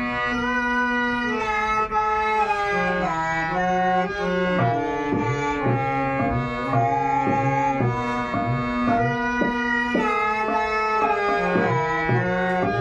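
Harmonium playing a melody in sustained reed tones, with tabla joining about four seconds in; the low drum's strokes slide in pitch.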